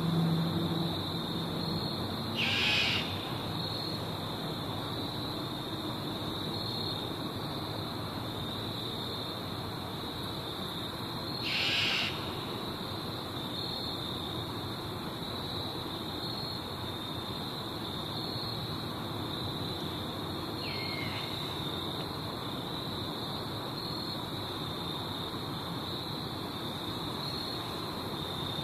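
An owl's short, harsh screech, heard twice about nine seconds apart, then a fainter one later. Under it runs a steady, high, pulsing insect trill.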